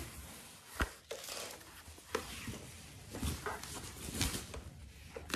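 Handling noise from unpacking a soundbar: a few scattered knocks and faint rustling of its packaging, the sharpest knock about a second in.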